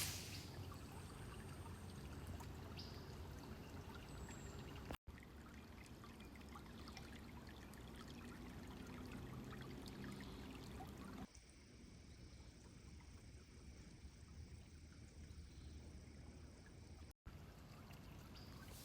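Small creek trickling and babbling, a faint steady water sound. It cuts out briefly about five seconds in and again near the end, and turns softer and duller from about eleven seconds in.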